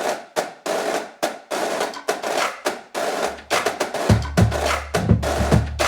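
Instrumental background music driven by quick drum and percussion hits; a deep bass comes in about four seconds in.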